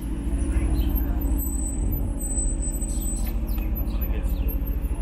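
A car engine idling steadily close by, a low, evenly pulsing rumble, with birds chirping faintly above it.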